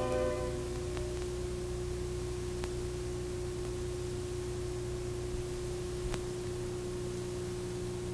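The last notes of the closing music die away in the first half second, leaving a steady faint electrical hum with a single held tone and an even hiss, the background noise of an old videotape running past the end of its programme. A few faint ticks break through.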